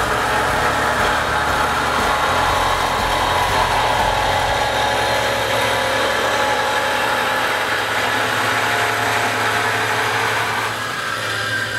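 Band saw with an M42 bimetal blade cutting through square metal tubing at full speed and feed under flood coolant: a steady cutting noise over a low motor hum. The noise turns slightly quieter and changes tone near the end.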